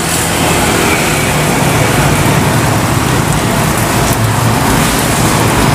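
Skewers of chicken sempol frying in a pot of hot oil, a steady, even sizzle, with motor traffic on the road alongside.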